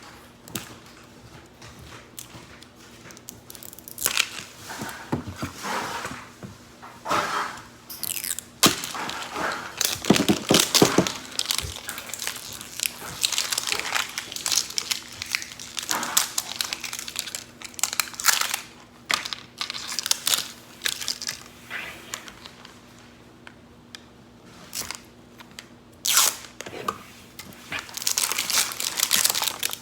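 Plastic packaging of a Mini Brands toy capsule crinkling and tearing as it is unwrapped by hand, in irregular bursts with short pauses, with one sharp click about nine seconds in.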